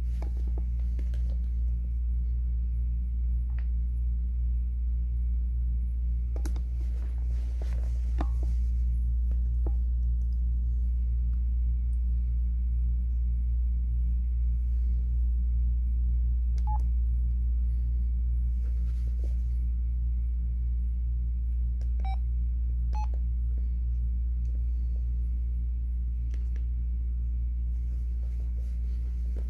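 Steady low electrical hum under faint finger taps on phone screens and keys, with a few short phone beeps about two-thirds of the way through as the phones are unlocked.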